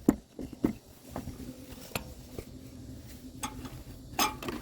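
Underbody cover being slid into place under the oil pan and handled: a series of light clicks and knocks, with a small cluster of knocks near the end.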